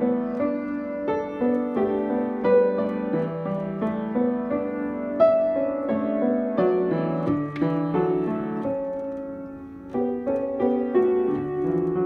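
Upright piano played with both hands: a gentle melody over chords, notes left to ring. The sound dies away a little toward ten seconds in, then the next phrase starts.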